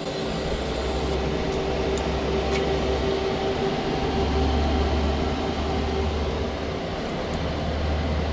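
Boxer Alutig 200 AC/DC inverter welder running, a steady machine hum with a low drone and a faint constant tone over a hiss. The low drone grows stronger about four seconds in and again near the end.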